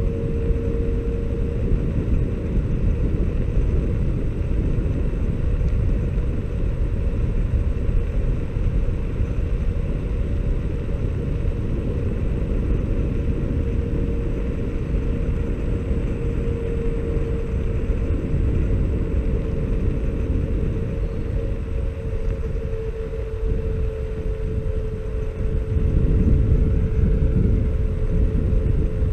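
Xiaomi Mi Scooter Pro 2 electric scooter riding steadily on asphalt: a low rumble of wind on the microphone and tyres on the road, with a steady whine from the front hub motor. The rumble grows louder near the end.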